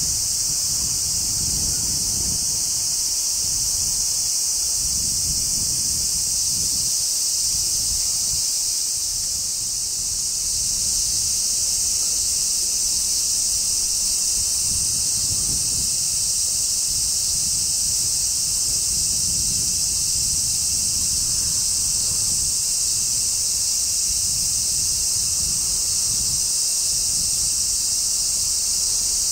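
Summer cicadas droning in a steady, shrill, high-pitched chorus, with gusts of wind rumbling on the microphone underneath.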